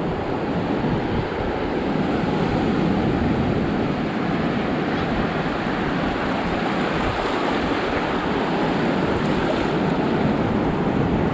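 Ocean surf breaking and washing in, a steady rushing that swells and eases, with wind buffeting the microphone.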